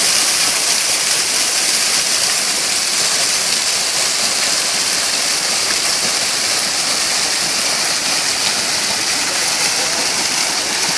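Small waterfall pouring down a rock face and splashing onto rocks into a shallow pool: a steady, hissing rush of falling water.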